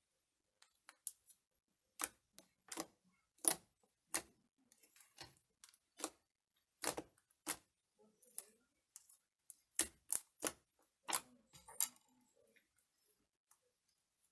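Homemade glue slime being poked and squished by hand: a run of short, sharp clicking and popping squelches at irregular intervals.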